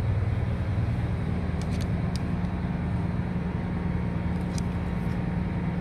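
Steady low drone of a cargo ship's engine and machinery, with a few faint clicks.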